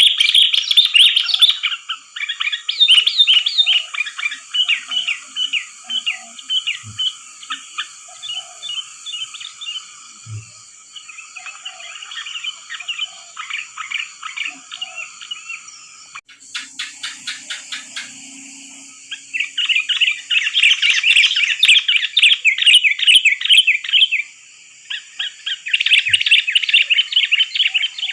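Sooty-headed bulbuls (kutilang) chattering and singing in fast, bubbly chirping phrases. The song comes in loud bursts with short pauses, over a steady high hiss. It is a lure call used to attract wild bulbuls.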